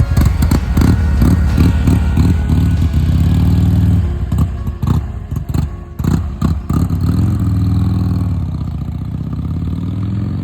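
Buell XB9R's air-cooled V-twin running and being revved: quick throttle blips at first, a steady stretch, then a choppy run of short blips with the revs dropping and catching about midway, before the revs rise and fall and settle into a steady run.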